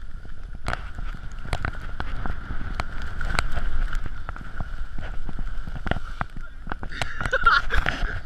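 Skis running over snow as picked up by a camera carried by the skier: a low rumble with many irregular sharp knocks and scrapes, over a steady high hum.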